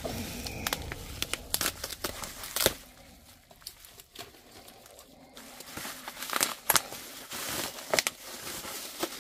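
Plastic bubble wrap crinkling and tape tearing as a taped bubble-wrap package is pulled open, with a scatter of sharp crackles. It goes quieter for a couple of seconds in the middle, then the crackling picks up again.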